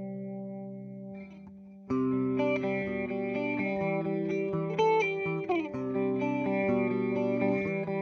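Clean electric guitar from a Fender Jazzmaster played through a Boss CE-2 chorus pedal into a simulated Fender '65 Twin Reverb amp. A held chord rings out and fades, then about two seconds in a run of picked notes and chords begins, with a couple of slides.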